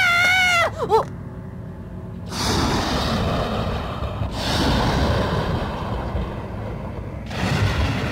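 A boy's held scream, which breaks off within the first second. Then a deep rumbling noise with a hiss over it rises and falls in three swells, heard with lightning over a mountain landscape, fitting a thunder rumble.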